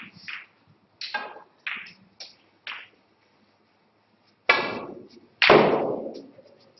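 Snooker balls clicking during a shot: the cue tip striking the cue ball and the balls knocking together, a handful of sharp clicks in the first three seconds. About four and a half seconds in come two louder knocks a second apart, each ringing on for most of a second.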